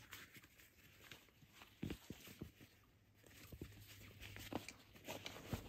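Faint rustling and handling noises, with a few soft knocks; the loudest is about two seconds in.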